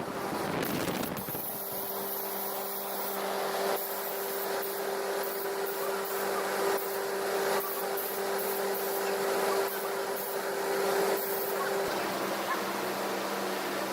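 Machinery running steadily: a constant hiss of noise with a low hum and a higher held tone that stops about twelve seconds in.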